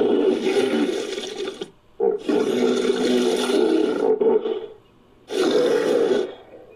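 Sound-designed European hippopotamus calls, built from mixed hippopotamus recordings: three loud, drawn-out calls one after another, each lasting one to two seconds and fading out before a short pause.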